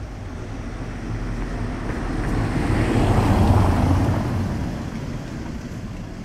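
A motor vehicle passes close by. Its low engine hum grows louder to a peak about three seconds in, then fades away.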